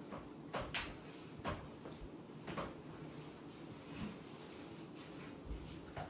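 Several sharp clicks and knocks of pool balls and cue, scattered about a second apart over a quiet room.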